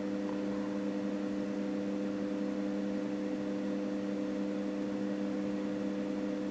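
A steady hum made of a few constant low tones over a faint hiss, unchanging throughout.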